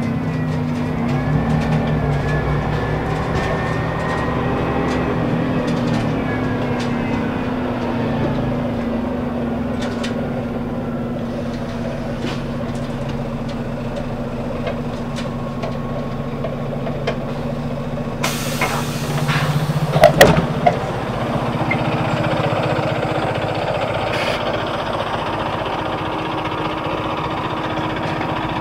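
Scania L94UB city bus with Ikarus E94F body: its diesel engine running as the bus slows and stands, then a long hiss of compressed air about two-thirds through with a few loud clunks, and the engine note rising again as the bus moves off near the end.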